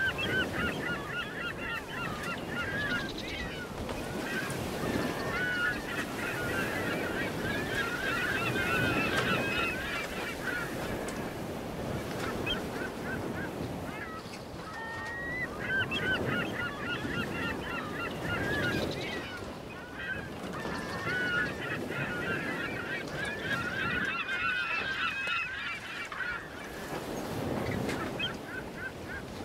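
A flock of birds calling, many short overlapping calls that come in two long surges, over a steady low rumble.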